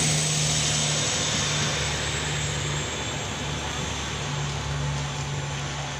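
SA136 diesel railcar pulling away from the station: its diesel engine hums steadily under wheel and rail noise, slowly fading as the train leaves.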